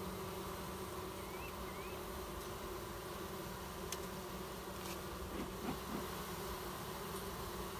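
Honey bees humming steadily around an opened hive. A couple of faint clicks come about four and five seconds in.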